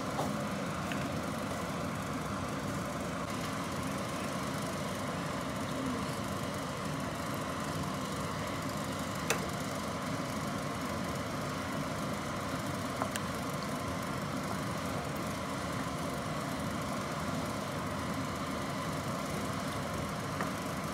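A steady motor-like hum, with a couple of light clicks about nine and thirteen seconds in.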